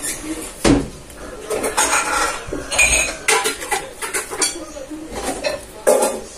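A metal fork clinking and scraping against a metal baking tray and a plate while roast meat is served, in irregular short clinks.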